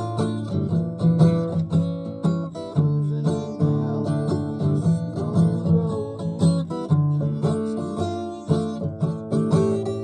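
Acoustic guitar playing an instrumental tune, a mix of picked notes and strummed chords in a steady rhythm.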